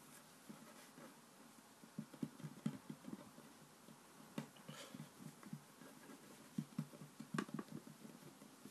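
Faint, irregular soft pats and presses of hands flattening play dough on a wooden table. A couple of sharper taps stand out, one about four and a half seconds in and a louder one about seven and a half seconds in.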